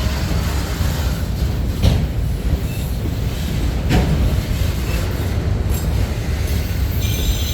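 Freight cars of a CSX manifest train rolling past with a heavy, steady rumble. Two sharp clanks come about two seconds apart, and a high wheel squeal starts near the end.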